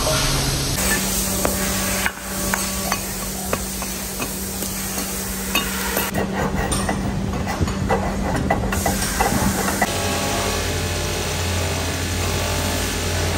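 Metalworking sounds from a wheel-hub workshop in quick cuts: scattered metal knocks, clicks and scraping, then from about ten seconds a steady machine hum as an aluminium hub is pressed against a spinning polishing wheel.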